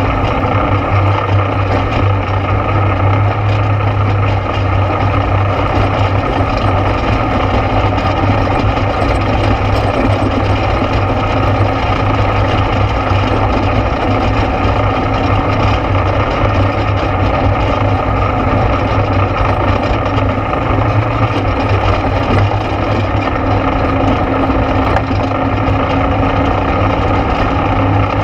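ATV engine running steadily under way, a constant low drone with no change in pace.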